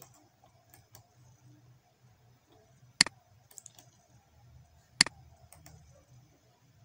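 Two sharp computer mouse clicks about two seconds apart, each followed by a few fainter clicks, over a faint low hum.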